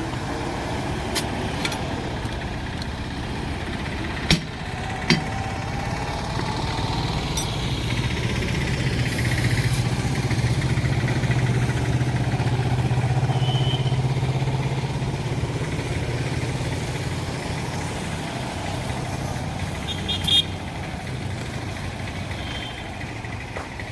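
A motor engine running steadily with a low hum that swells for several seconds around the middle and then eases off. Two sharp knocks come about four and five seconds in.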